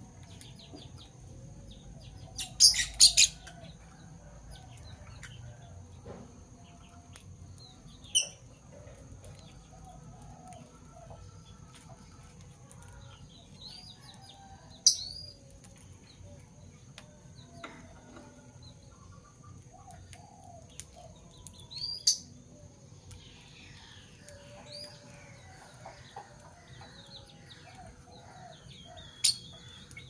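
Fischer's lovebirds giving sharp, high single chirps every several seconds, with a louder run of sound about three seconds in. Other birds call faintly underneath.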